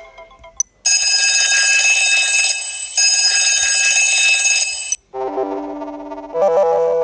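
Sony Xperia phone alarm tones: a bright, buzzing electronic ring held for about four seconds that cuts off. A synthesized keyboard melody starts right after.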